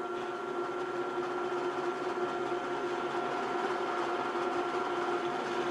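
Klutch variable-speed drill press running steadily at about 650 RPM, an even hum of one constant pitch.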